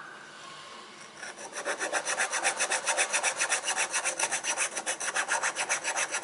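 A flat file worked back and forth across the edge of a white 3D-printed plastic part, smoothing the print. It starts as soft rubbing, then after about a second turns into fast, even rasping strokes, about six a second.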